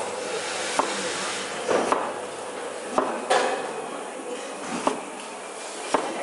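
Kitchen knife slicing potatoes on a cutting board: irregular sharp knocks of the blade hitting the board, about seven, over a steady background hum.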